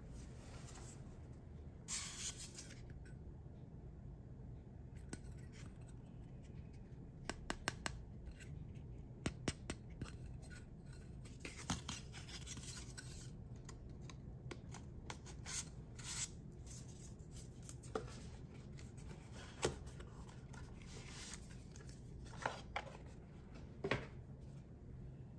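Hands handling stiff paper cards and a cardboard box at close range: scattered soft rustles and slides broken by short, sharp clicks and taps.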